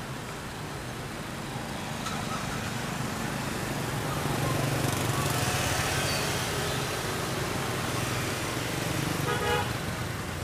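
Street traffic of motorbikes and cars, a steady engine hum that swells in the middle as motorbikes pass close by. A brief horn toot sounds near the end.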